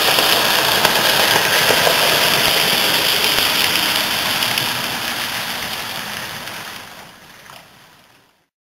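Hornby Southern Schools class model locomotive with a tender-driven motor running along the track hauling coaches: a steady, noisy whirr and rattle of motor and wheels. It grows fainter over the last few seconds and dies away to silence just before the end.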